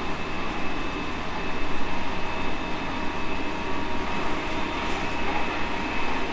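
JR Central 313 series 5000 subseries electric train running at a steady speed, heard from inside a car: continuous wheel-on-rail rumble with a faint, even whine over it.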